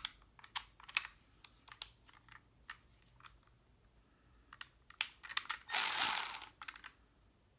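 Scattered small clicks and knocks of a Milwaukee M12 3/8-inch cordless ratchet being handled. About five seconds in comes a louder click, followed by a burst of noise lasting under a second.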